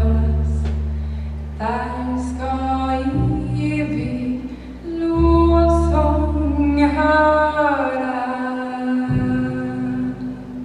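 A small chamber ensemble of singers and strings, with a double bass, plays slow held closing chords. The chords change every second or two, and the music ends just before the end.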